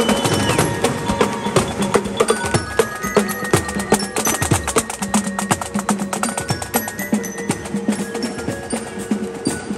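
Marching band percussion playing: drums and rapid stick clicks over glockenspiel-type bells ringing held notes.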